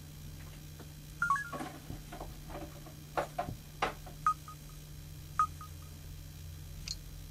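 Samsung SCH-W750 mobile phone key tones and button clicks as its menus are operated: a cluster of clicks and short beeps in the first few seconds, then two single short beeps about a second apart and a brief higher chirp near the end.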